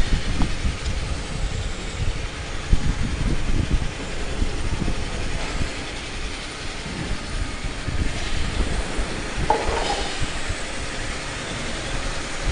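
A 400-model wood pellet mill running and turning out pellets: a loud, steady low rumble with irregular low knocks in the first few seconds and a short rattle about three-quarters of the way through.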